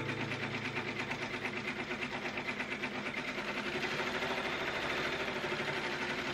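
Six-needle Brother Entrepreneur embroidery machine stitching a fill, a fast, even rattle of needle strokes.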